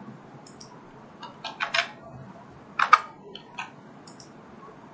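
Computer keyboard typing: a run of separate keystrokes, the loudest clustered between about one and three seconds in, with a few fainter clicks around them.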